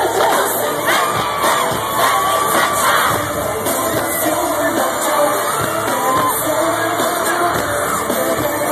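Live pop concert music over an arena sound system, heard from within the crowd, with fans screaming and cheering over it throughout.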